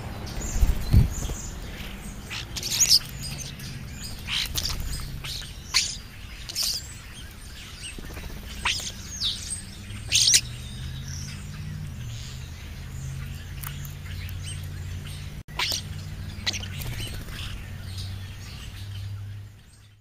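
European starlings giving short, scattered chirps and whistles, many sliding down in pitch. Under them runs a low hum that shifts in pitch, and the sound fades out at the end.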